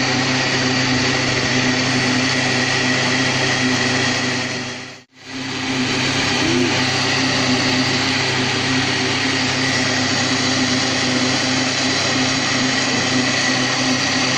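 Electric countertop blender motor running steadily as it blends a thick mango, cream and custard ice-cream mixture. It cuts out briefly about five seconds in, then runs on again.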